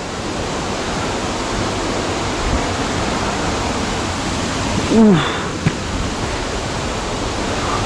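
Waterfall rushing steadily. A short falling vocal sound comes about five seconds in, with a single click just after.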